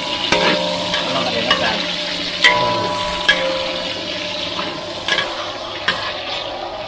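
Sliced fish cake and garlic sizzling in hot oil in a large wok while a metal spatula stirs them, scraping and clanking against the wok about six times.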